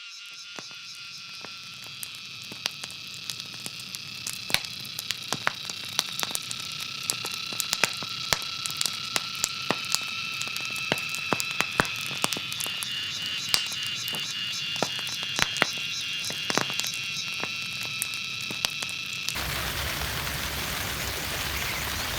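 Night chorus of frogs and insects: steady high-pitched trilling, with many scattered sharp clicks. About three seconds before the end it cuts abruptly to an even hiss like rain.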